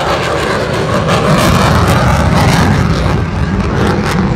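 Loud, steady jet noise from an F-35's single Pratt & Whitney F135 afterburning turbofan as the fighter flies past: a deep rumble with a crackly edge.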